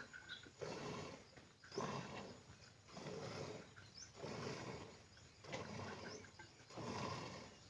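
Hand-milking a cow: streams of milk squirting into a pail in a steady rhythm, about one noisy stroke a second.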